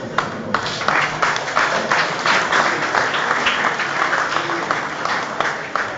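Audience applauding: dense clapping that fills in about a second in and thins out near the end.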